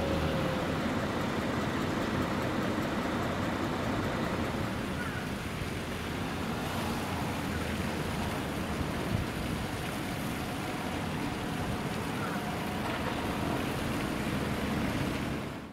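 Steady road traffic noise from passing vehicles, with engine and tyre rumble; it cuts off abruptly at the end.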